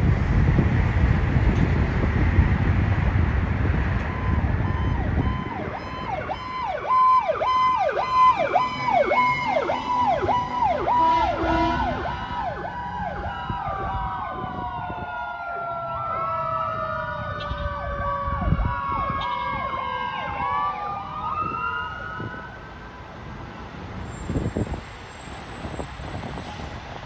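Fire apparatus sirens, several at once: a fast repeating yelp with wailing tones gliding up and down over it, starting about six seconds in and fading out a few seconds before the end. It opens with the low rumble of a fire truck driving off.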